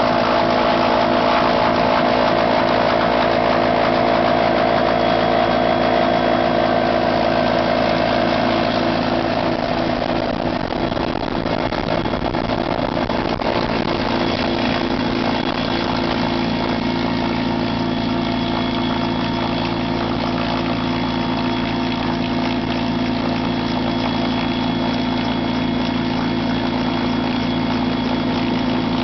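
Helicopter running with a steady engine and rotor drone; a mid-pitched tone fades about a third of the way in, and a faint high whine comes in about halfway.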